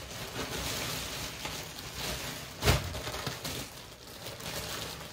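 Clothes and their packaging rustling as they are handled and moved about, with one sharp thump about two and a half seconds in.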